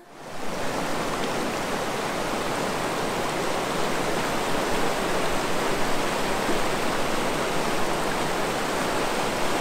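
Fast mountain river rushing over rocks in whitewater rapids, a steady, even sound of water.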